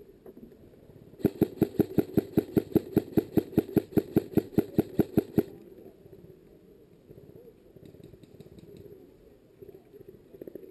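Airsoft rifle firing a rapid string of about seven shots a second for roughly four seconds, then stopping abruptly.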